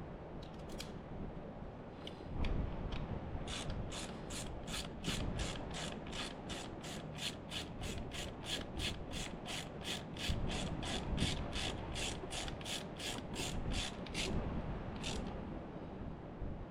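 Hand ratchet clicking at a steady pace of about three clicks a second for some ten seconds, as bolts are run down. Low rubbing and handling noise sits under it.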